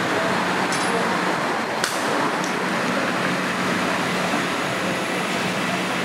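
Steady outdoor city background noise: an even rushing hiss with a low, steady hum underneath.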